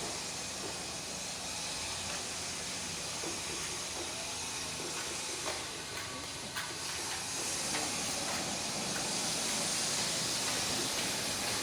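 Steady hiss of background noise, growing a little louder past the middle, with a few faint clicks around halfway through.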